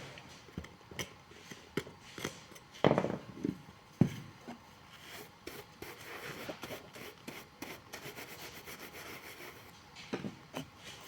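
Hand work on a shoe sole: scraping and rubbing with scattered clicks, two sharp knocks about three and four seconds in, then a quick run of small ticks.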